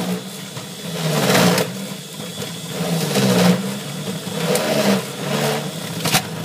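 Electric juicer motor running while sweet potato pieces are pressed down its feed chute with the pusher. A steady hum swells into louder grinding three times as the food meets the cutter.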